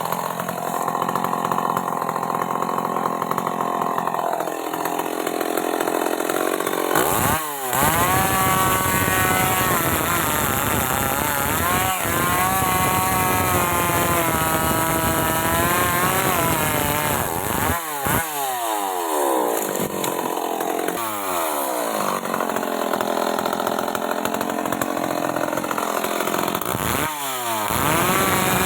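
Stihl MS 381 two-stroke chainsaw running at high revs, cutting wood. Its engine pitch drops and climbs back up three times, about 7 seconds in, around 18 seconds, and near the end.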